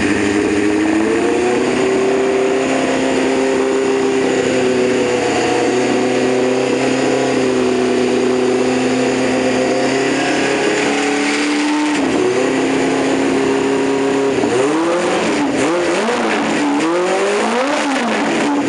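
Freshly rebuilt engine running on its first heat cycle, held at a steady speed with small throttle changes. Near the end it is revved up and down several times in quick succession.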